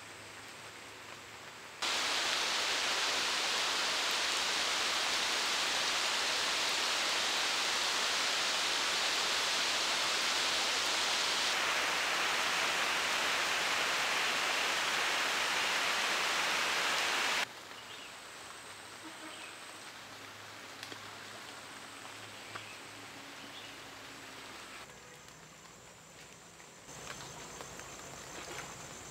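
Heavy rain falling on a lake's surface: a steady, loud hiss that starts abruptly about two seconds in and cuts off about seventeen seconds in, leaving quieter lakeside ambience with a few faint ticks.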